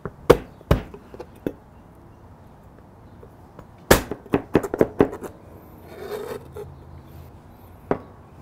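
Chef's knife mincing garlic on a plastic cutting board: a few separate chops, then a quick run of rapid knocks on the board about four seconds in, and one last knock near the end.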